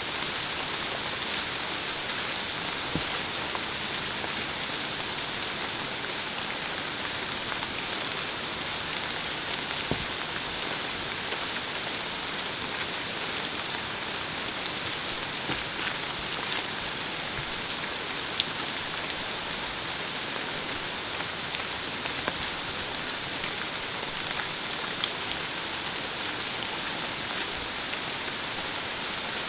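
A steady, even hiss like rain, with a brighter high band running through it and a few sharp ticks scattered across it.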